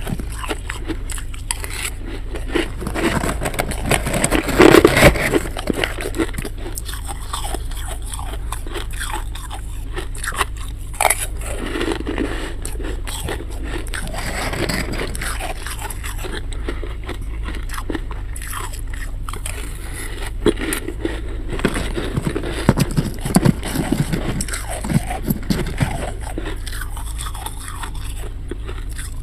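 Thick freezer frost being scraped loose and crunched between the teeth: a steady run of gritty scraping and crisp icy crunches, loudest about five seconds in.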